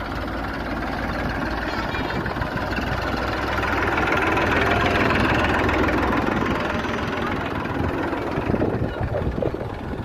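Small farm tractor's diesel engine running at a steady pace as it drives along, with a rough knocking beat; it is louder in the middle, as if close by.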